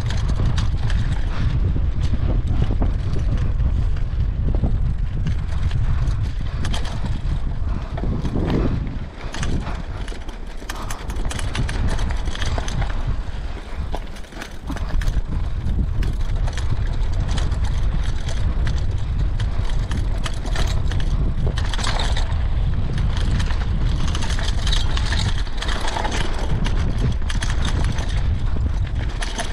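Mountain bike ridden down a rough woodland trail, heard from the rider's helmet camera: wind rumbling on the microphone, tyres running over dirt and rocks, and the bike rattling with many small knocks and clicks. The noise drops briefly twice, around nine and fourteen seconds in.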